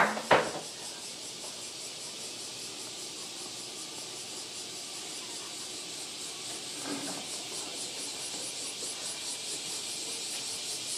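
Cicadas shrilling steadily: a dense, high buzzing hiss with a fine rapid pulse, growing slightly louder later on. Two sharp knocks come right at the start.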